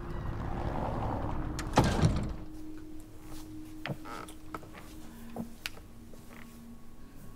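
A door opening and swinging shut with a heavy double thud about two seconds in, then quiet room tone with scattered small clicks and a faint steady hum.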